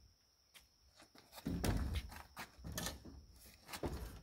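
Heavy wooden LVL beam being set down onto timber wall framing: a deep wooden thump about a second and a half in, then several lighter knocks as it settles.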